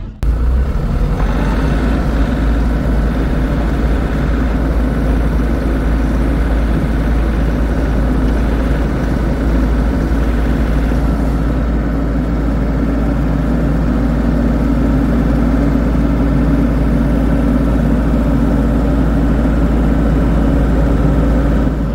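Mini excavator's diesel engine running steadily as it works dirt into a pile.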